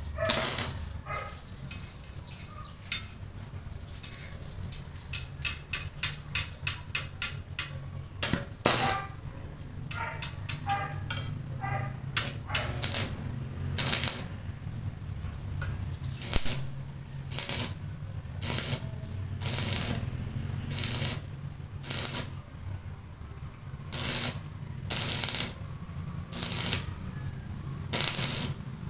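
Repeated short strokes of hand work on a metal motorcycle rim, quick and uneven at first, then settling to about one a second, over a steady low hum.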